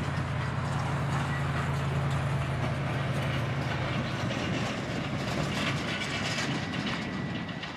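Jet engines of an Icelandair Boeing 737 MAX rolling along the runway: a steady roar with a low rumbling hum that fades about halfway through.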